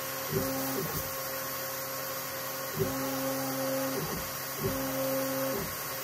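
The axis drive motors of a DIY CNC mill moving a diode laser head over plywood: a steady pitched whine during each move, broken by short rising and falling pitch sweeps as moves start and stop, about every second. The whine sits over a steady hiss.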